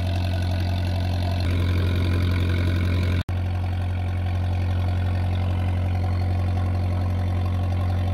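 A fishing boat's engine running steadily with a low, even hum while the boat pushes the prawn net. The sound drops out for an instant about three seconds in, then carries on unchanged.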